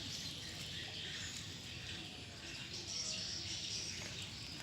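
Faint outdoor background with birds chirping.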